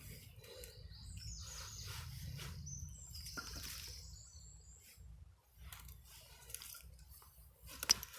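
Small birds chirping: a few short, high calls in the first half, over a faint low rumble of outdoor background noise.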